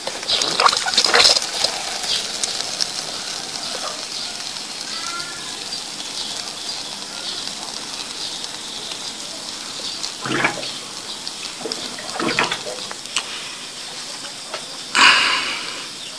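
Hot water running steadily from a water dispenser's tap into a paper instant-noodle cup, with a few short rustles and knocks from the cup and its foil lid being handled, the loudest near the end.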